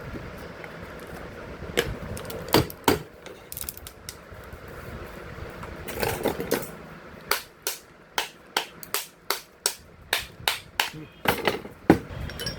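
Hammer tapping on metal: a few scattered knocks, then a quick, fairly even run of strikes at about two to three a second through the second half.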